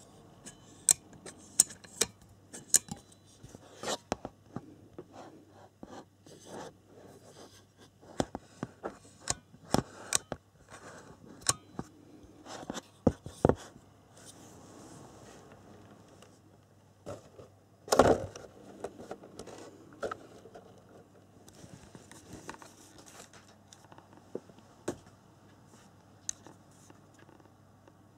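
Handling noises from a metal RC car pit stand with a foam top: scattered sharp clicks, taps and short scrapes, with one louder knock about 18 seconds in.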